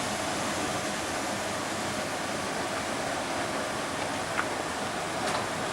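Steady rolling noise of a train in motion, with a couple of brief high squeaks near the end.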